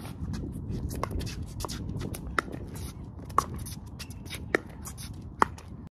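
Pickleball paddles striking the hard plastic ball in a rally: six sharp pocks, roughly one a second, some louder than others. Between the hits, shoes scuff and shuffle on the hard court.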